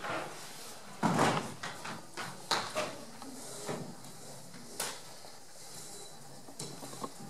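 Knocks and bumps of a small table and a chair being set down and shifted on a wooden stage. The loudest knock comes about a second in, followed by several lighter knocks.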